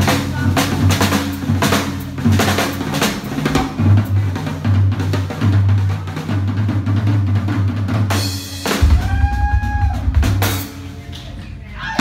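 Rock music led by a drum kit playing fast strokes over a steady bass line. About eight and a half seconds in, the bass drops lower and sliding, arching tones come in above it.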